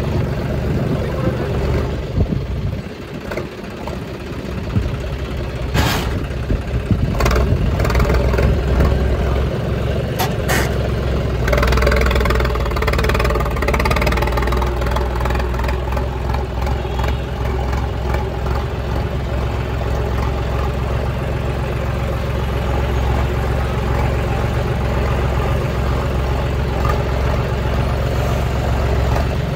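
Dumper truck engine running steadily. A few sharp knocks or clatters come between about 6 and 11 seconds in.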